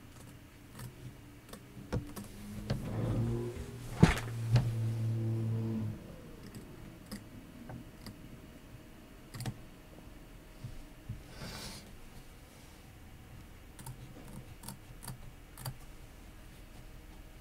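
Small scissors snipping fabric, heard as scattered light clicks while appliqué fabric is trimmed close to an embroidery stitch line. In the first few seconds a low hum starts up, runs for about three seconds with a sharp knock in the middle, and cuts off abruptly.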